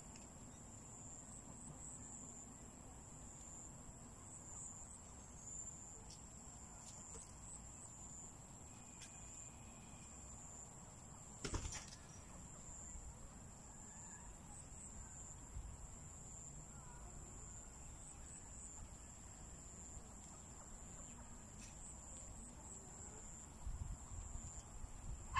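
Steady high-pitched chorus of night insects such as crickets, with one sharp click about halfway through and some low rumbling near the end.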